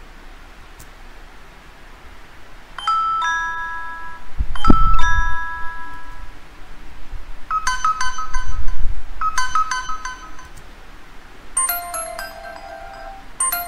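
A string of short electronic chime and ding sound effects, starting about three seconds in: two bell-like dings, the second with a low thump, then quicker clusters of ringing dings around eight, ten and twelve seconds.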